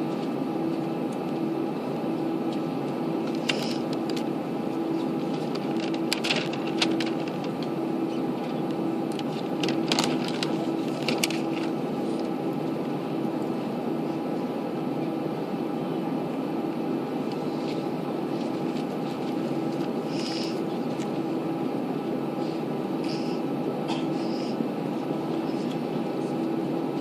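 Steady airliner cabin hum with engines and air ventilation running, a droning tone wavering slightly in level, and a few light clicks and knocks scattered through it.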